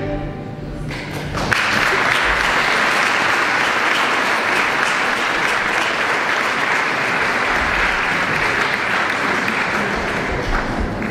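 An audience applauding steadily, breaking in about a second and a half in, after the last note of a song dies away.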